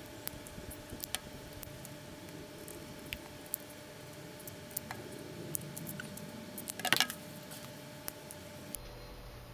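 Small plastic bottles of fluid acrylic paint being handled on a tabletop: scattered light clicks and taps as caps are worked and bottles are squeezed and set down, with a quick cluster of louder clicks about seven seconds in. A faint steady hum sits underneath.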